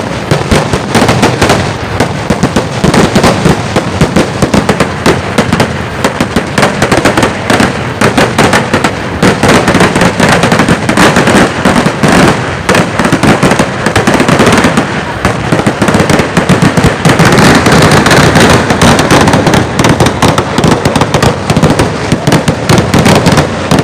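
A dense, unbroken barrage of firecracker bangs going off in rapid succession, a daytime festival fireworks display, growing thickest about two-thirds of the way through.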